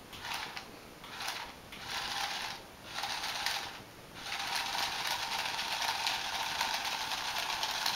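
Remote-control toy tarantula's small motor and gears whirring, four short bursts in the first four seconds, then one long steady run.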